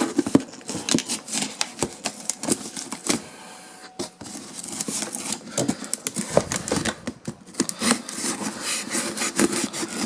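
Cardboard shipping box being worked open by hand: a busy, irregular run of sharp clicks, scrapes and rustles of cardboard and packing tape, easing off briefly a little before the middle.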